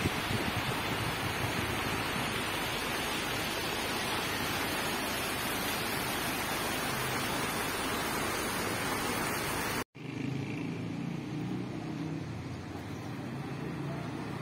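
Steady rush of a fast stream running over rocks in a stone channel. It cuts off abruptly about ten seconds in, and a much quieter, lower background follows.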